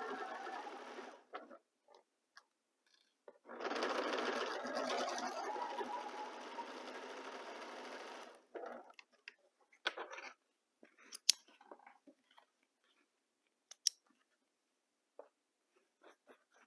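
Domestic electric sewing machine stitching a quilt seam in two runs: the first stops about a second in, and the second runs for about five seconds. After that come scattered sharp clicks and light handling noises.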